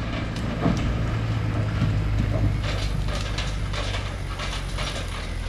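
Diesel engine of a logging truck running steadily at idle, a low even hum, with faint rustling and light knocks over it.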